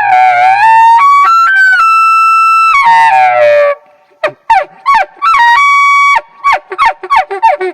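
Bull elk bugling, very loud. The call climbs from a lower note in steps to a high whistle, holds it for about a second, then slides down. A run of short yelping notes follows, with a second brief held whistle in among them.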